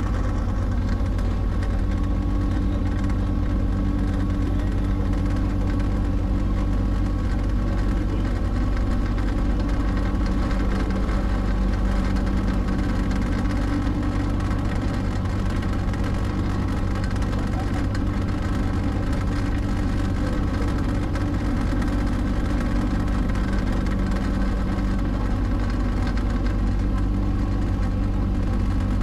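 Tour boat's engine running steadily: a constant low drone with a steady hum above it.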